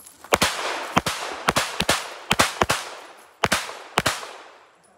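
A 9mm Alien Retro open-division competition pistol firing fast strings of shots, mostly in quick pairs of two close together, about seven pairs over four seconds, each shot trailed by a short echo.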